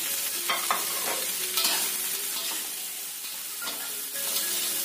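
Fried tofu, eggplant and green beans sizzling in oil in a wok, with a metal spatula scraping and turning them against the pan several times.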